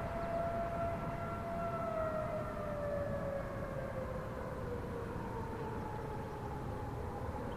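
Federal Signal Thunderbolt 1000 outdoor warning siren sounding a single tone that slowly falls in pitch and then begins to rise again near the end, the rise-and-fall wail of the attack signal.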